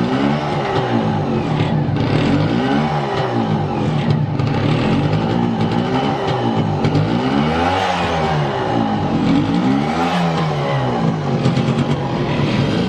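Yamaha YA6 125 cc two-stroke single-cylinder engine running and being revved, its pitch rising and falling again and again about every two seconds.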